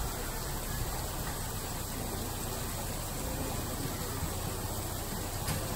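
Steady outdoor background noise, a low rumble with an even hiss and no distinct event, with a faint click near the end.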